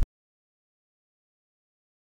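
Silence: the sound cuts off abruptly at the very start, and nothing at all is heard after that.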